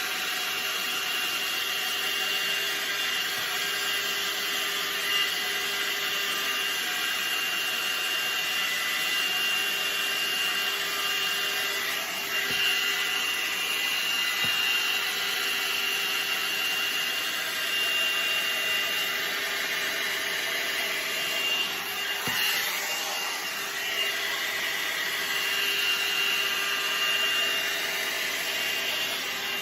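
A 1000 W hot air brush (hair dryer brush) running steadily on its high setting: a fan hiss with a steady whine, interrupted briefly a couple of times as the brush is worked through hair.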